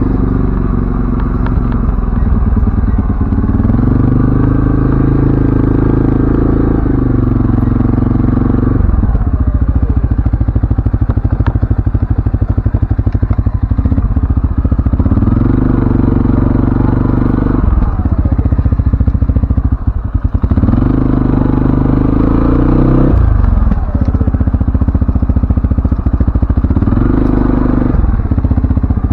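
CFMoto ATV engine running under way, its pitch climbing and dropping again several times as the throttle is worked, with some rattle from the machine.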